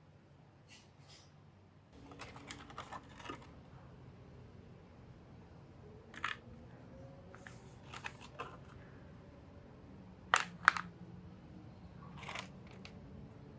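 Small plastic toy vehicles being handled, giving scattered short clicks and taps: a quick cluster about two to three seconds in, single taps around six and eight seconds, and the loudest, a sharp double click, about ten seconds in.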